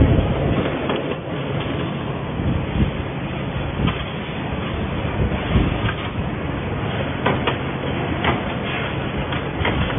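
A CNC wire bending and butt welding machine at work: steady machine noise with sharp clacks from the bending head and clamps at irregular intervals, and a loud welding burst right at the start as the weld throws sparks.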